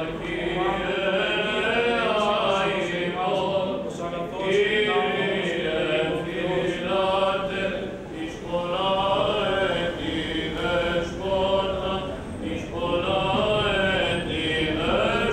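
Greek Orthodox Byzantine chant sung by male voices, in long held, ornamented phrases with brief breaks between them about every four seconds.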